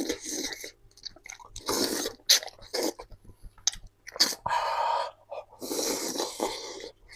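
Close-miked chewing and slurping of hot, oily food, in wet bursts broken by sharp smacking clicks.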